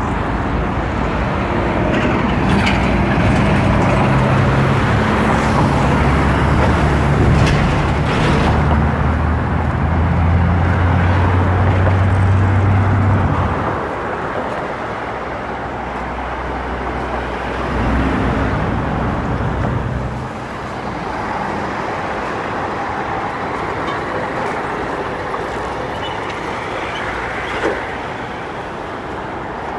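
Road traffic: a motor vehicle's engine hum over tyre and road noise, strongest for the first dozen or so seconds, then easing to a lighter steady rumble.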